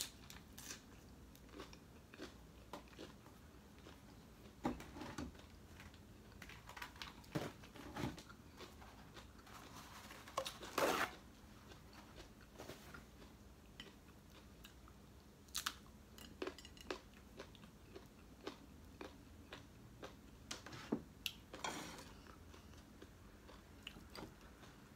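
Close-up eating sounds: chewing and biting, with scattered small crunches and mouth clicks. About halfway through, a brief rustle of a paper towel being pulled off.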